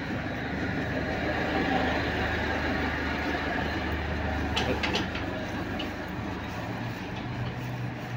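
A Toyota HiAce van's engine running as the van drives slowly past at close range and moves off down a narrow street. The hum is loudest in the first half and eases off as the van pulls away.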